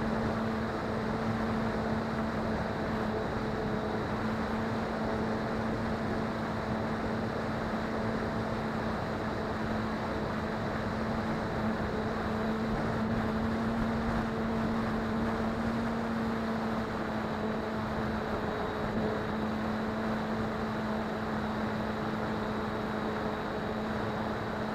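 Electric motor and propeller of a small FPV model plane running steadily under power, heard from the onboard camera with wind rushing past: a constant hum over a rushing noise.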